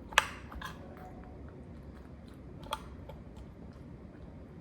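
A utensil clinking and scraping against a dish while sauce is stirred over chicken and vegetables: a sharp clink just after the start, a lighter one soon after, and another about three seconds in, with quieter handling sounds between.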